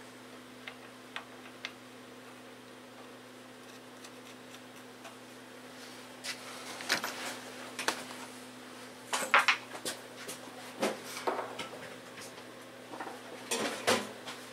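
Metal hand tools and sockets clinking and clattering as they are handled, in scattered clusters of sharp clicks, with a steady low hum underneath.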